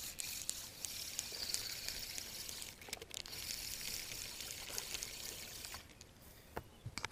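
A small hooked bluegill splashing at the water's surface as it is reeled to the boat. The splashing runs for about six seconds and stops as the fish is lifted.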